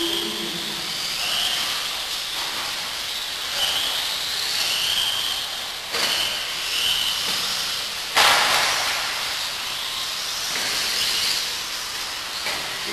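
Radio-controlled off-road buggies running on a track. Their motors give a high whine that rises and falls as they speed up and slow down, over a steady hiss. A sharp knock comes about eight seconds in and is the loudest sound, with a smaller one shortly before.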